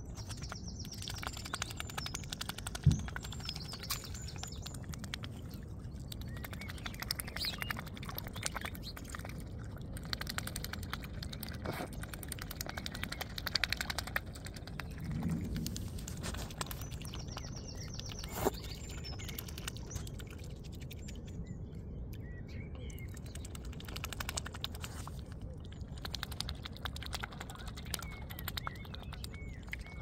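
Mute swan feeding in shallow water at the shore, its bill dabbling and clicking as it picks up seeds, with birds calling in the background. A few sharp knocks stand out, at about three seconds in and again just past halfway.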